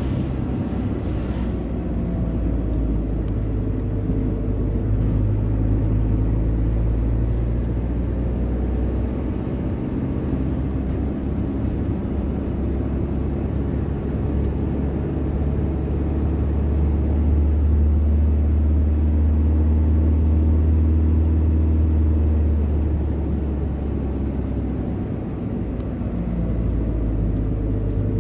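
Car driving on a smooth asphalt road: steady low engine and tyre rumble, with a low hum that swells for several seconds past the middle and then eases.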